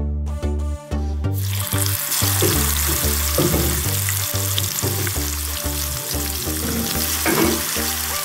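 Masala-coated fish frying in hot oil in a pan: a loud, dense sizzle starts suddenly about a second in as the fish goes into the oil and keeps up steadily. Background electronic music with a steady beat plays throughout.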